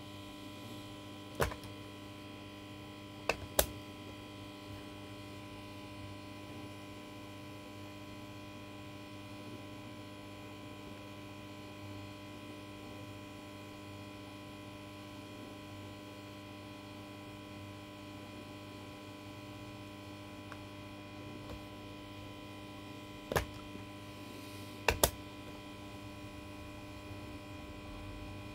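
Steady electrical mains hum, with sharp clicks of buttons pressed on a Toshiba CD player's remote control. There is a click about a second in, a quick pair around three and a half seconds, one more after a long gap, and a second pair soon after.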